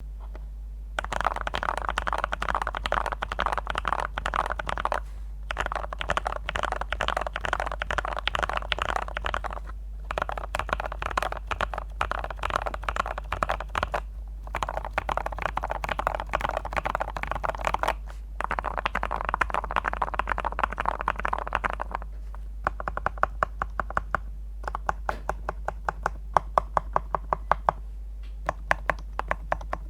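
Mechanical keyboard with tactile Gateron Brown switches in a Yin Chen D84 case filled with polyester cotton, being typed on. Rapid, continuous typing comes in runs of several seconds with brief pauses between them. About two-thirds of the way through it changes to slower, separate, louder keystrokes.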